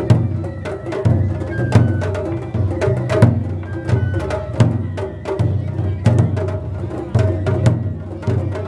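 Japanese festival float music: a large taiko drum beaten in a steady, even rhythm, with sharp clicking strikes over it and a few short high held notes.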